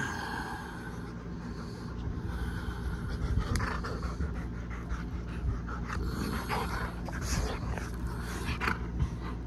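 Husky dog panting steadily while play-biting, with a few short soft rustles.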